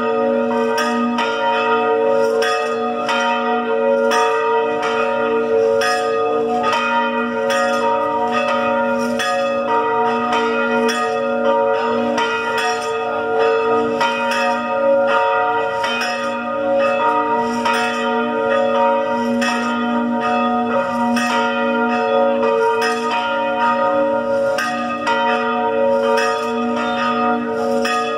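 Church bells pealing, struck about twice a second, each stroke ringing on so that the tones overlap into a continuous peal.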